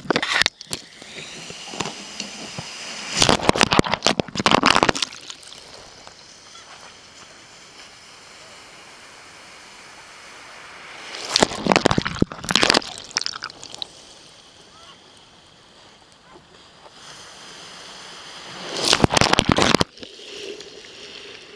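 Surf washing over a camera lying underwater among beach stones: three loud rushes of water, about eight seconds apart, with quieter sloshing and gurgling between them. The water sound is heard close up from the submerged camera.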